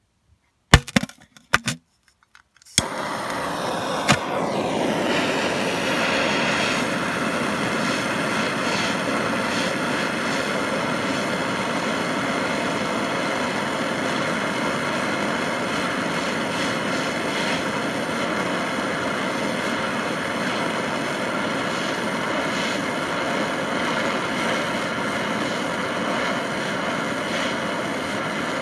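Gas torch flame burning steadily beneath an enamel-coated disc on a trivet, firing the enamel. A few knocks and clicks come first, and the flame noise starts suddenly about three seconds in.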